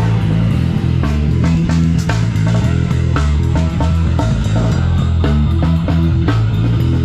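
Live rock band playing: amplified electric guitar over deep bass notes and a drum kit keeping a steady beat.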